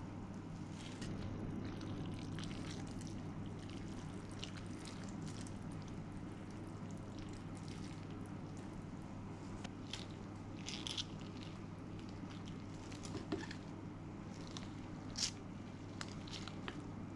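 Ramen noodles being lifted and folded in broth with wooden chopsticks: faint wet squishes and small drips, with a few light clicks and one sharper click near the end, over a steady low hum.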